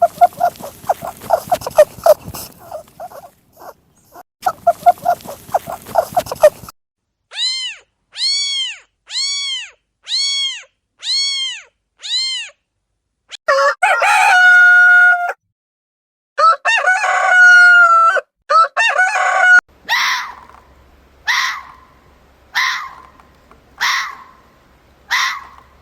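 A series of different animal calls: rapid pulsing calls, then seven short chirps that rise and fall, then a rooster crowing twice, then short calls repeated about every second and a quarter.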